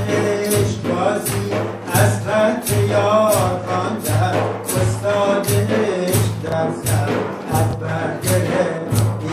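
Voices singing Persian Sufi devotional verse over a steady drum beat of about two strokes a second.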